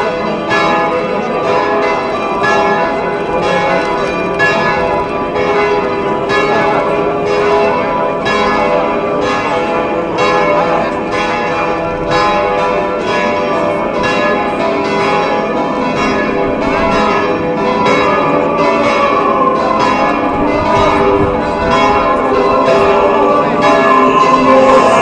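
Church bells pealing continuously, a rapid run of evenly repeated strikes with overlapping ringing tones.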